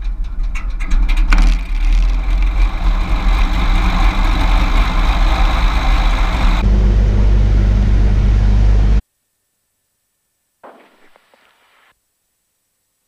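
Beechcraft Bonanza G36's six-cylinder Continental IO-550 piston engine just started and turning the propeller: uneven firing for about the first second and a half, then running steadily at idle. The sound cuts off abruptly about nine seconds in, leaving near silence with a brief faint noise a little later.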